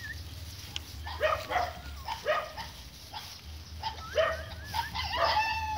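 A series of about a dozen short, high animal yelps, with a bird's warbling whistle near the start and again about four seconds in.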